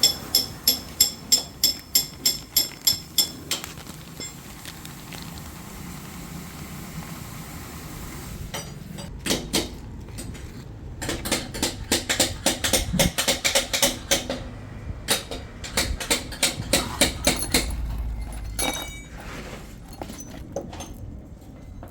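Metal tools and engine parts clicking and clinking while being handled: first a run of evenly spaced metallic clicks, about three a second, for a few seconds, then after a lull a long stretch of irregular metal clinks and rattles.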